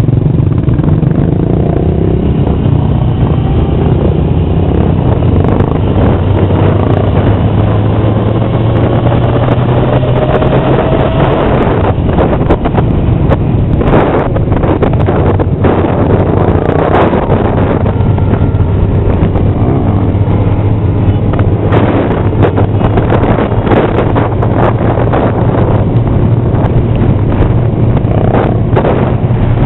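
Motorcycle engine running at cruising speed in a group ride, heard from a moving bike, its pitch rising gradually over the first ten seconds or so. Gusts of wind buffet the microphone, most of all in the second half.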